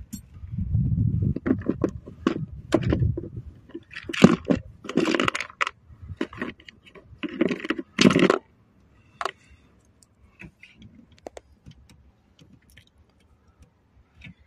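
Hand work on metal and plastic parts: a run of short scrapes, knocks and rattles for about eight seconds, then only scattered faint clicks.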